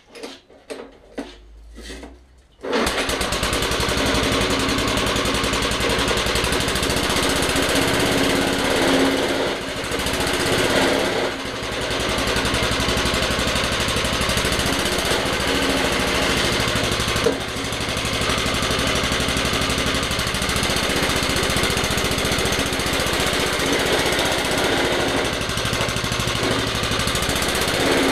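Suffolk Punch 43S petrol lawnmower engine starting: a few brief sounds, then it catches about two and a half seconds in and runs steadily, dipping briefly a few times. The engine running shows the mower works again now that its seized blade has been freed.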